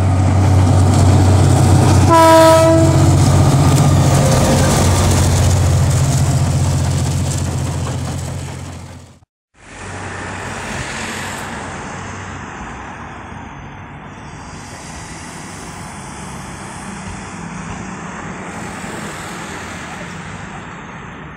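Diesel locomotive running with a loud steady low drone, sounding one short horn blast about two seconds in; the engine sound fades and cuts off suddenly about nine seconds in. After that, a much quieter steady outdoor background noise.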